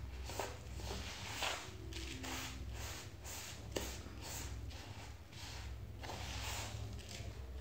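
Metal spoon stirring crumbly, freshly scalded cassava-starch dough in a plastic bowl: repeated scraping strokes with a couple of sharp clicks of the spoon on the bowl, over a steady low hum.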